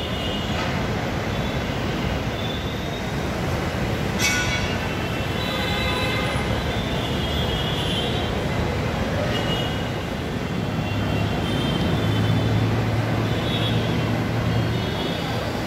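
Mumbai Metro train rolling slowly along an elevated station platform, a steady rumble of wheels and running gear. There is a sharp click about four seconds in, and a low hum joins near the end.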